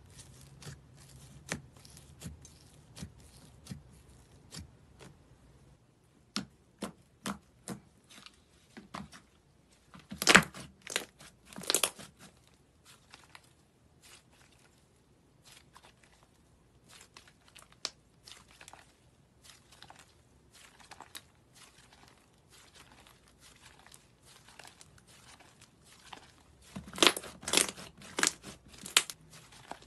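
Thick yellow slime being poked, stretched and pressed by hand, giving a scattered series of sharp clicks and crackles. The crackling is loudest and densest about ten seconds in and again near the end.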